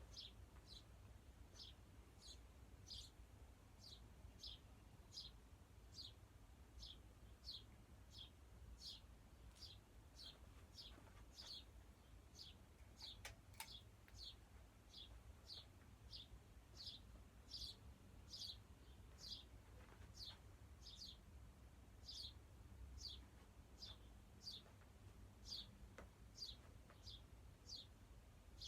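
NuTone Hacienda ceiling fan running on fast, heard as a faint low hum. A short, high chirp repeats over it about once every 0.7 seconds.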